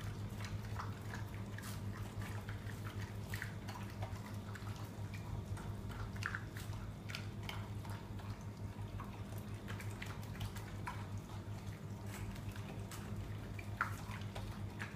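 Dogs eating kibble soaked in chicken stew broth: irregular wet chewing and lapping clicks.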